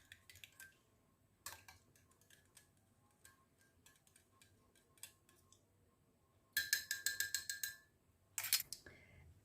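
A teaspoon stirring liquid in a glass, clinking against the glass in scattered light taps with a faint ring, then a quick run of rapid clinks about two-thirds of the way through and a shorter run near the end.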